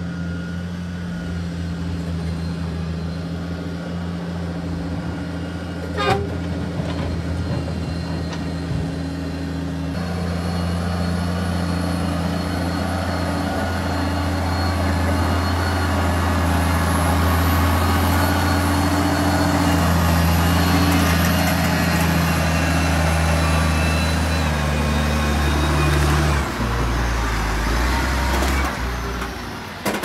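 Diesel engine of a heavily loaded FAW dump truck pulling uphill on a dirt haul road, a steady low drone that grows louder partway through and drops to a lower note near the end. A single sharp knock about six seconds in.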